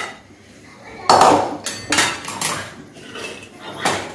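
Metal spoon scraping and clanking against a kadai as cooked masala paste is scooped out of it, with several sharp knocks, the loudest about a second in.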